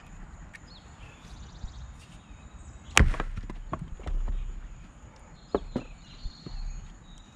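An axe blow splits a piece of maple firewood on the chopping block about three seconds in, followed by a few lighter clatters as the split pieces fall. A little later, a couple of short wooden knocks as split pieces are picked up and set back on the block.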